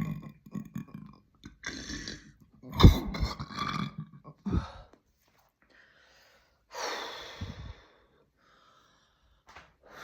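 A deep burp about three seconds in, with shorter burp sounds just before and after it, then a breathy exhale a few seconds later.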